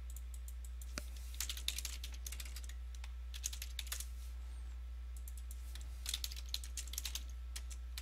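Typing on a computer keyboard in three short runs of keystrokes, over a steady low hum.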